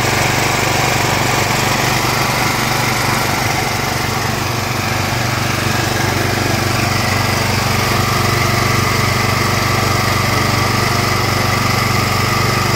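Hyundai portable gasoline generator's engine running steadily. It runs well now that its carburetor has been cleaned, the fuel-system fault that had kept it from starting.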